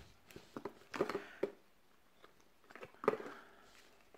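Nearly empty plastic squeeze bottle of PVA glue being squeezed upside down, giving a few short quiet squelches and clicks, in two clusters about a second in and about three seconds in.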